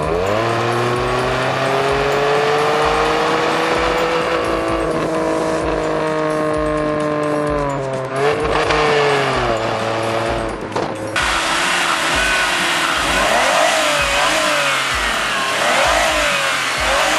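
A car engine pulling hard, its note climbing slowly and steadily, dipping briefly about eight seconds in, then climbing again. After an abrupt change near the end, an Opel Signum's V6 Ecotec engine is revved in a series of short blips, each rising and falling.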